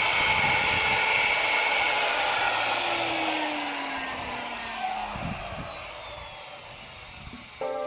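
Power tool motor running and then winding down, its noise slowly fading with a whine that falls in pitch. Music starts near the end.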